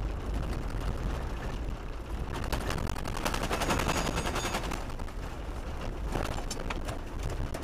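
Car driving on a loose gravel road, heard from inside the cabin: a steady low road rumble with a dense crackle of small stones flicked up against the underbody and wheel arches.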